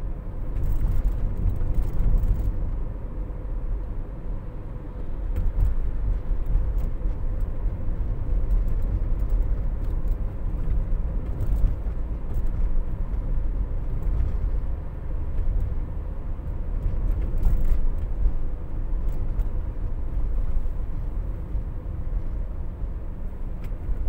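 Interior cabin noise of a moving Toyota Noah 70-series minivan: a steady low rumble of engine and tyre noise, with a faint steady hum above it.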